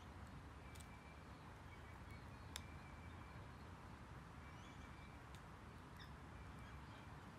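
Near silence: faint outdoor background with distant small birds chirping now and then, and a couple of soft clicks, the clearest about two and a half seconds in.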